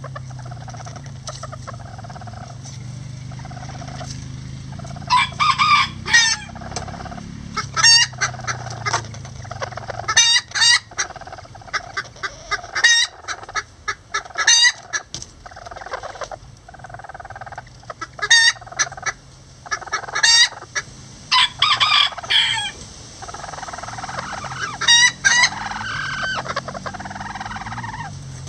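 Old English Game bantam roosters and a hen clucking low and steadily, broken by about a dozen short, loud calls.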